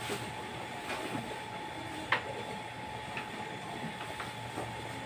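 Sheep feeding at a trough of fresh-cut grass: chewing and grass rustling, with scattered small clicks and knocks and one sharper knock about two seconds in. A faint steady tone runs underneath.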